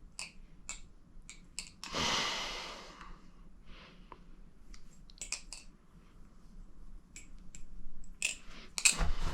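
Sparse light clicks and taps from a butterfly knife trainer being handled while its pivot screws are tuned, with a short breathy rush about two seconds in and a denser run of clicks near the end.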